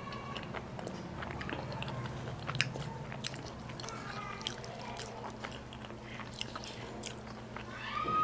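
Close-miked chewing and biting of food, with many short, irregular wet mouth clicks and smacks.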